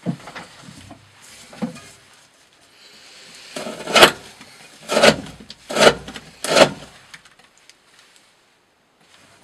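Knife blade sawing through thick rope in four rasping strokes about a second apart, after a few light clicks.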